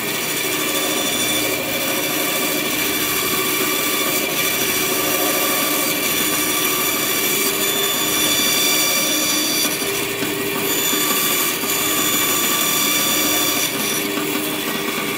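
Bandsaw running steadily while its blade takes short back-and-forth nibbling cuts into plywood, clearing out waste wood.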